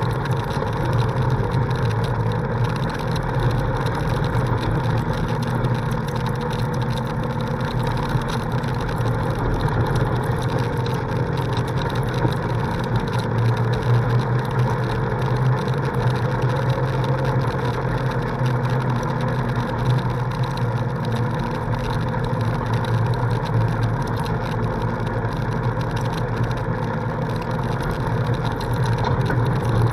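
Polaris RZR side-by-side's engine running at a steady cruise, heard from on board as a constant low hum with no marked revving.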